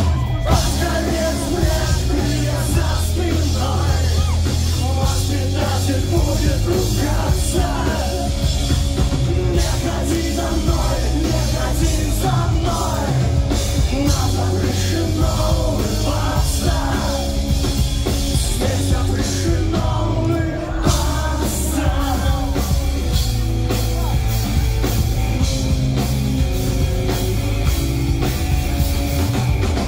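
Pop-punk rock band playing live and loud: heavy drums and bass with distorted guitars, with a brief dip about two-thirds of the way through.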